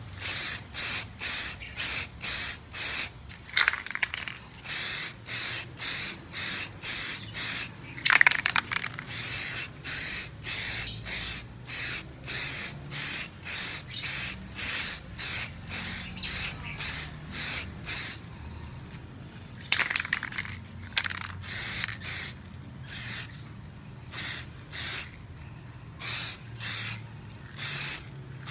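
Aerosol can of Botny rubber paint spraying in short hissing bursts, about two a second, with a few brief gaps between runs.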